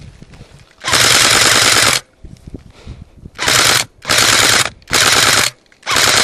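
Airsoft gun firing full-auto bursts close by: one burst of about a second, then four shorter bursts in quick succession.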